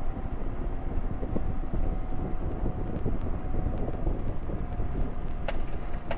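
Quad City Challenger II ultralight landing on a grass strip: the engine at low power under steady wind and rumble as the aircraft slows. There are two sharp knocks near the end.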